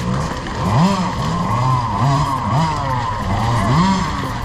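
Dirt bike motor revving up and down in quick swells, about five rises and falls in pitch, as the bike is pushed through deep mud.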